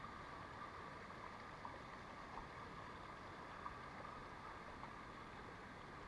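Small waterfall cascade splashing over rocks: a faint, steady rush of running water.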